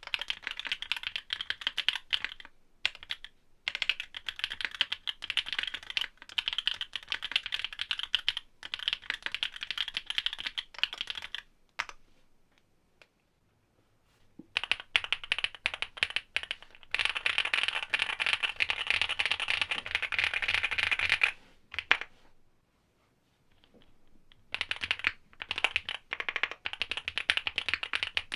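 Typing on mechanical keyboards with factory-lubed OWLAB SWK Neon switches: first a Geon F1-8X with an aluminium leaf plate, then, after a pause about halfway through, a Swagkeys Shelby80 with a POM plate. The keystrokes come in runs broken by short silences, and there is a fast, continuous flurry of typing in the second half.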